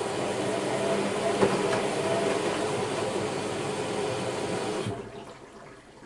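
AEG Lavamat Protex L72475FL washing machine in its wash phase: the motor turns the drum and tumbles the wet laundry with a steady run of water sounds. Near the end the sound drops away sharply as the drum comes to rest.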